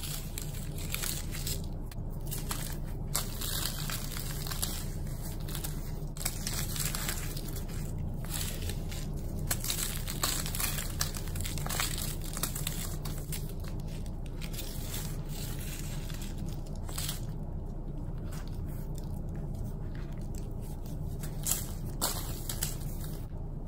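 Hands crushing a dry, crumbly chalk block into powder: continuous crunching and crumbling with many small crackles.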